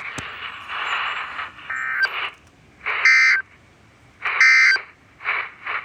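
Three short bursts of Emergency Alert System digital data tones (warbling two-tone SAME code) from a NOAA Weather Radio broadcast, about a second apart: the end-of-message code that closes the warning. Before the tones there is a stretch of radio static.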